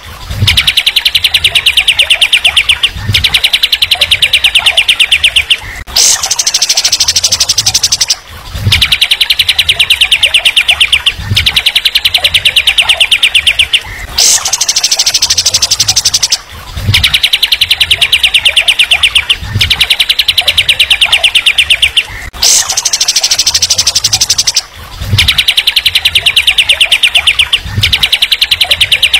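A songbird's fast chattering trill in phrases of two to three seconds with short breaks. Some groups open with a sharp high note. The same sequence repeats about every eight seconds: a looped recording.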